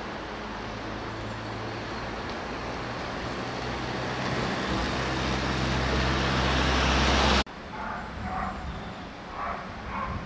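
A motor vehicle's engine and road noise, a low steady hum under a rushing sound, growing steadily louder as it comes closer, then cut off abruptly about seven seconds in; a much quieter outdoor background follows.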